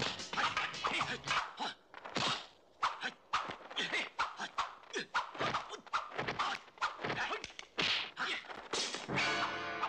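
Kung fu film fight sound effects: a rapid, uneven run of punch and kick impacts and swishing whooshes, many hits a second, with a brief gap about three seconds in.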